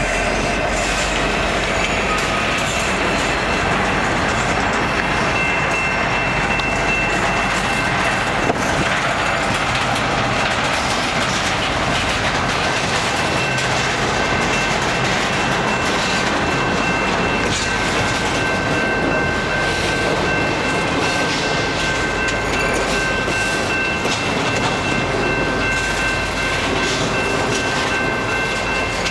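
CN freight train rolling past close by: locomotives pulling away, then a long string of intermodal well cars, with a steady rumble and wheel clatter over the rail joints. A few steady high tones ring over the rumble, stronger from about six seconds in.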